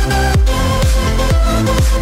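Electronic dance music with a steady beat of deep, pitch-dropping kick drums under sustained synth notes.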